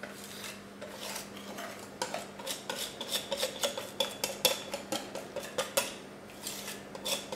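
Metal wire whisk scraping and tapping against the inside of a glass mixing bowl as batter is pushed out of it: a run of light clinks, sparse at first and quick from about two seconds in.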